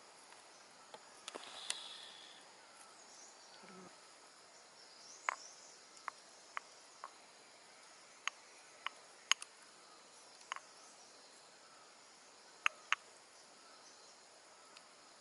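Faint, steady insect hum in woodland, broken by about a dozen short, sharp taps and clicks at irregular spacing: cooking utensils, a cleaver and a stone pestle, knocking against the wooden board and stone mortar while chutney is spooned onto grilled chicken. A brief scraping rustle comes about a second and a half in.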